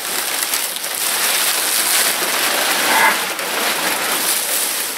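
Plastic bubble wrap rustling and crinkling as it is handled and pulled at, a dense crackly noise that goes on throughout.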